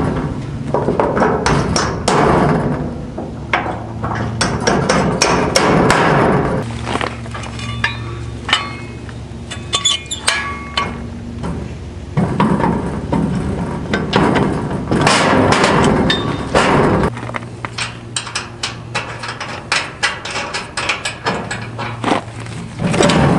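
Hammering and metal clanking: many sharp knocks, some in quick runs, against the steel-clad base of a chicken tractor while a metal chick lift is fitted to it. Between the runs there are stretches of scraping and handling noise.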